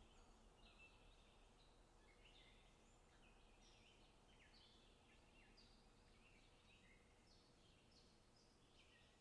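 Faint chirping of several small birds: many short calls following one another quickly and overlapping, over a low background hiss.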